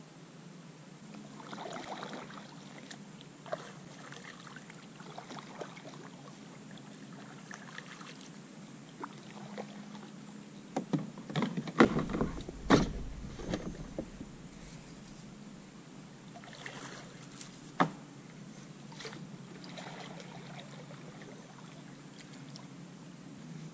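Kayak paddling, with soft swishing paddle strokes. About halfway through comes a cluster of sharp knocks and a low thump, the loudest sounds, and there is one more knock later on.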